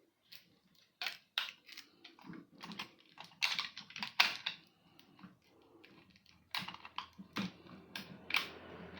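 A string of irregular sharp clicks and knocks from objects being handled, coming in two clusters.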